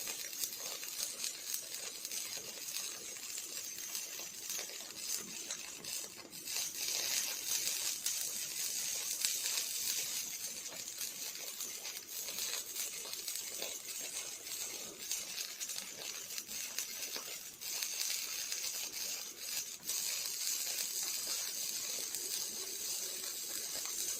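Robotic arc welding: the welding arc running as a steady crackling hiss, with a few sharper pops from spatter.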